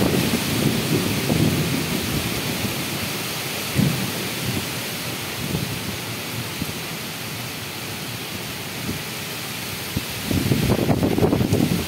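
Nor'wester thunderstorm: steady rain hiss under heavy wind gusts thrashing the trees, with loud low rumbling surges at the start and again near the end.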